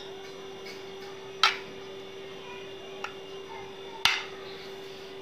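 A knife scoring raw chicken leg quarters, its blade knocking sharply against the plate about a second and a half in and again about four seconds in, with a fainter tap between. A steady hum runs underneath.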